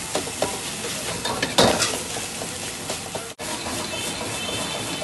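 Egg fried rice sizzling in a wok over a high gas flame while a metal ladle stirs and scrapes it against the pan, with a sharp clack of the ladle on the wok about a second and a half in.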